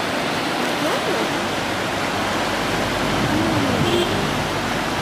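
Lidder River, a fast mountain river, rushing over rocks and rapids: a steady, even roar of white water.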